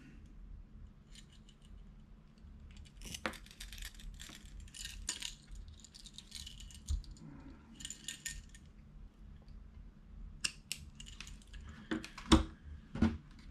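Line cutters snipping the tag ends of braid and monofilament fishing line, with small metallic clicks as the tool and line are handled. The clicks come sparsely at first, then several sharper ones near the end, the loudest like the cutters knocking on the table.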